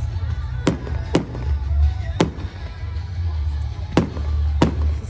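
Fireworks exploding at a display: five sharp bangs at uneven intervals, two close together near the start and two more near the end, over a steady low rumble.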